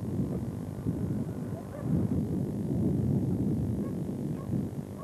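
Wind buffeting the microphone at sea, a fluctuating low rush, mixed with the noise of the boat and waves.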